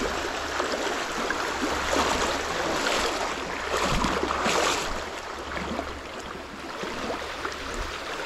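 Shallow creek water sloshing and splashing as someone wades through it on foot, loudest in surges between about two and five seconds in.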